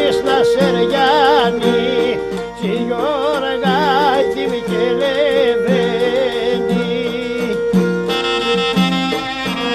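Traditional Epirote folk ensemble playing: a clarinet leads a wavering, ornamented melody with wide vibrato over violin and sustained accompanying notes.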